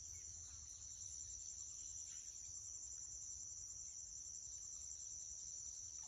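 Crickets chirring in a continuous high-pitched chorus, with a faint low rumble underneath.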